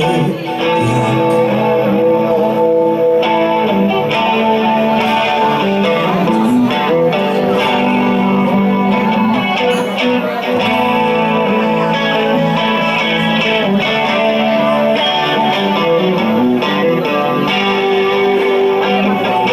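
Live band playing an instrumental passage led by guitar, with held notes over a steady loud accompaniment.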